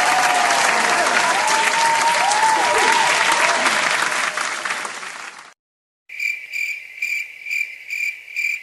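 A crowd applauding and cheering with a few whistles, fading out about five seconds in. After a brief gap, crickets start chirping in an even rhythm of about two chirps a second, the stock 'awkward silence' crickets effect.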